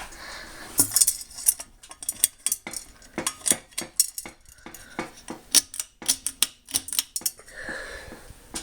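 A quick, irregular run of sharp clicks and clinks, several a second, like small hard pieces knocking together.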